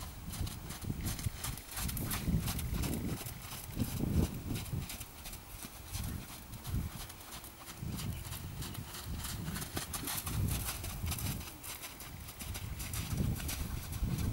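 A horse's hoofbeats on a sand arena as it circles at a trot and canter on a long line, over a low, uneven rumble that comes and goes in surges.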